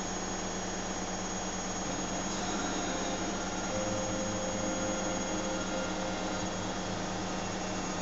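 Zanussi front-loading washing machine on its spin cycle, running with a steady whirring drone over a low hum.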